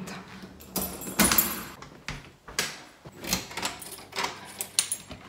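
Handling noises: a brief rustle about a second in, then a series of separate clicks and knocks.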